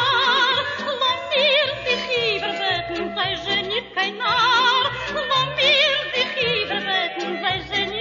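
Soundtrack music: a singing voice with a wide, wavering vibrato over short low bass notes.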